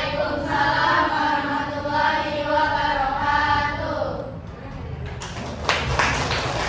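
A class of schoolgirls singing together in unison, holding long notes, for about the first four seconds. Then come a few sharp hand claps near the end.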